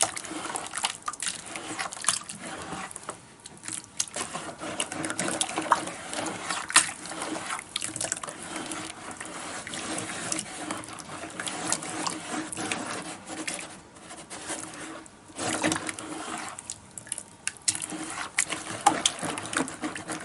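A hand working fire clay slip in a plastic bucket, breaking up lumps of clay in a thin, soupy mix: irregular wet sloshing with many small clicks and knocks.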